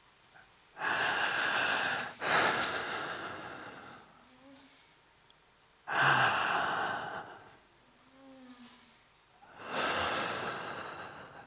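A performer breathing loudly and forcefully as a vocal warm-up: four long, noisy breaths, each starting sharply and fading away, the first two back to back.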